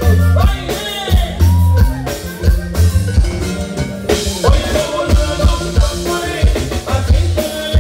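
Live band playing dance music: a drum kit and a strong low bass beat under guitars and a gliding melody line.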